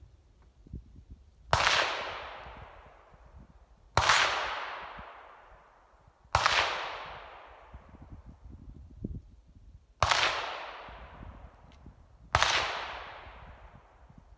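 Five single gunshots, about two and a half seconds apart with one longer gap of over three seconds, each followed by a long echo that dies away over about two seconds.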